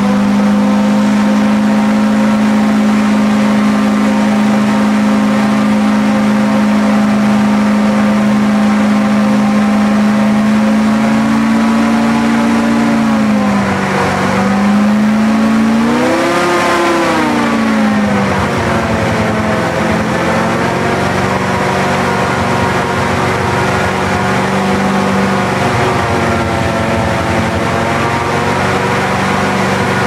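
Airboat engine and propeller running steadily at cruising throttle. Its pitch dips and swells back a couple of times in the middle as the throttle is eased and opened, then settles again.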